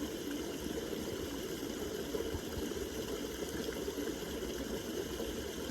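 Small creek trickling over granite stones: a steady, even sound of running water.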